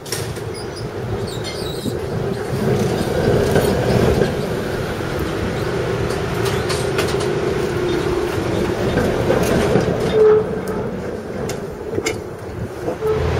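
A PCC streetcar pulling away and rolling close past, its steel wheels rumbling along the rails with scattered clicks from the track.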